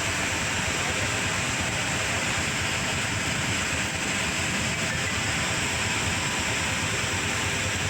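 Steady rush of water, an even noise that holds at one level without a break.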